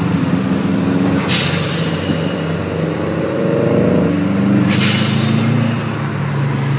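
Turbocharged Subaru engine accelerating through the gears: its note climbs for a couple of seconds and drops at a shift about four seconds in. A short burst of hiss comes twice, about a second in and again just after the shift, as turbo air vents off the throttle.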